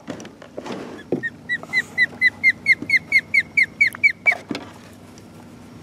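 Osprey calling: a quick run of short, high, whistled chirps, about five a second, each dropping slightly in pitch and growing louder, until they stop about four seconds in. A couple of dull knocks come before and after the calls.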